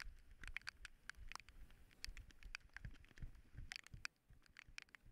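Near silence with faint, irregular small ticks and clicks, several a second.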